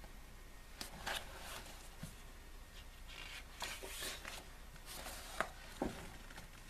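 Pages of a glossy album photobook being turned and smoothed by hand: a soft paper rustle as a page turns about four seconds in, with a few light clicks and taps before and after.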